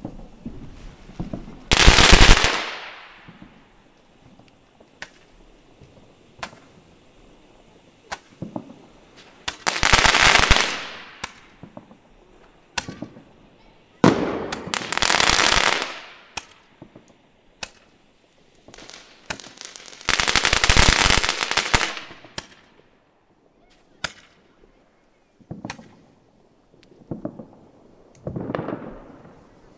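Fireworks going off: five loud crackling bursts of one to two seconds each, with many single short bangs in between.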